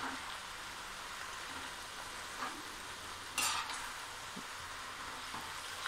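Chopped vegetables and beans sizzling in oil in a stainless steel kadai while a slotted metal spatula stirs them, with a louder stroke of the spatula against the pan about halfway through.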